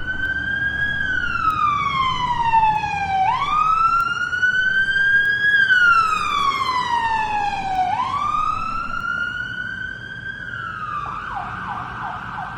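Police car siren wailing, its pitch slowly rising and falling twice, then switching to a fast yelp near the end, over a low steady rumble.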